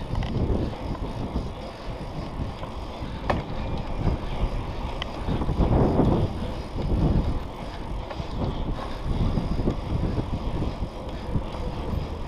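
A hardtail mountain bike rolling along a paved street, with wind buffeting the microphone in uneven gusts. A couple of sharp clicks come from the bike, about three and five seconds in.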